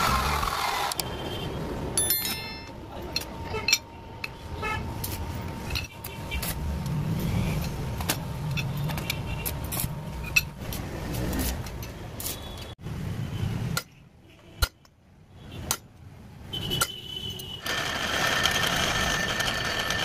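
Metal workshop sounds: steel tubes being handled, with scattered clicks and knocks over a low hum. There is a brief near-quiet gap a little past the middle.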